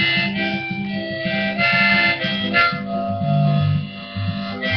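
Harmonica played in a neck rack, held changing notes over steady acoustic guitar strumming: an instrumental harmonica break between sung verses.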